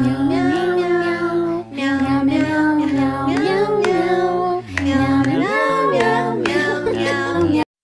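Music: a high singing voice in phrases over a low steady accompaniment.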